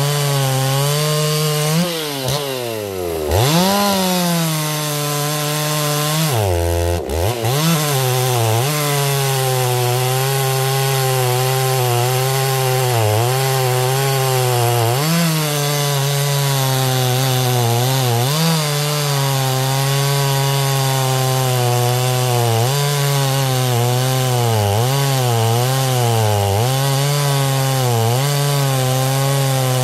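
Two-stroke chainsaw running at high revs and cutting through wood, its pitch wavering as the chain bites. Twice, about two and about seven seconds in, the engine drops sharply low and revs back up.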